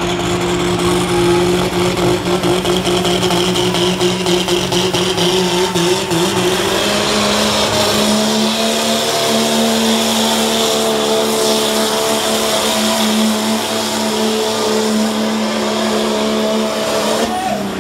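Dodge Ram 2500's 5.9 Cummins inline-six turbodiesel running flat out under heavy load, pulling a weight-transfer sled. The steady engine note climbs a little in pitch about seven seconds in, holds, then falls away just before the end as the truck comes to a stop.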